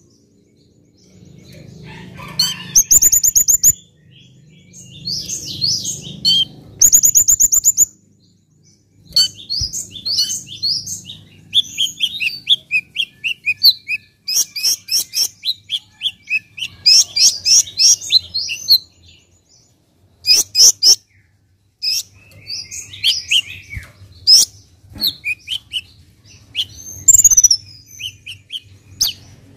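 Male Van Hasselt's sunbird (kolibri ninja) singing: phrases of quick, high chirps and fast rattling trills, broken by short pauses.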